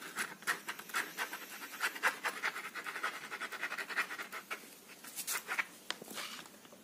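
Ballpoint pen scratching quick hatching strokes on a carpet, many short strokes a second, thinning out after about five seconds.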